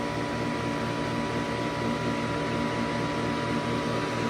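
2012 Lasko 400-series portable heat pump running in cooling mode: compressor and fan giving a steady hum, a low pulsing throb under a constant high tone.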